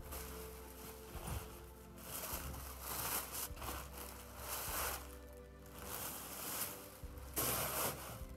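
Tissue paper crinkling and rustling in several bursts as a leather handbag is pulled out of its wrapping, over background music.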